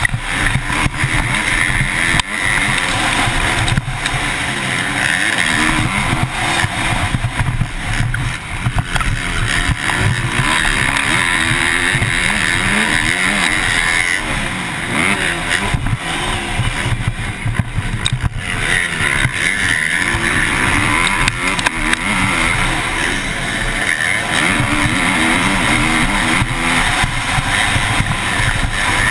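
MX2-class motocross bike engine at race pace, heard from the rider's helmet camera. The revs rise and fall over and over with throttle and gear changes.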